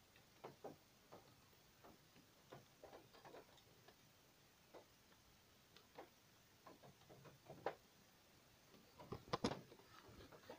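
Near silence broken by faint, irregular clicks and taps from a smartphone being handled, with a few more bunched near the end.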